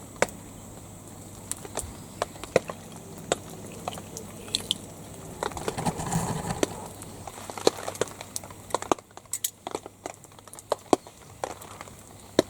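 Irregular light clicks and taps, with a short rustle about six seconds in.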